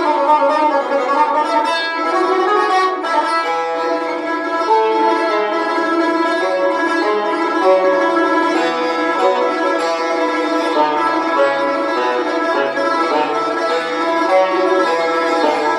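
Persian tar played solo with a plectrum: a melody of quick plucked notes in the Bayat-e Tork mode of Persian classical music, with ringing metal strings.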